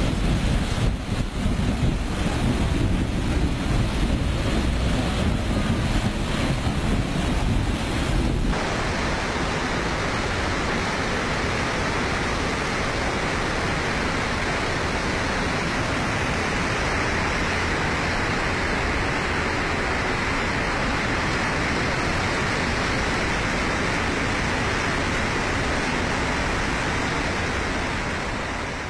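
Floodwater churning and splashing around a passenger train moving through it, with wind buffeting the microphone. About eight seconds in the sound cuts to the steady rushing of a muddy flood torrent surging past a bridge, which fades out near the end.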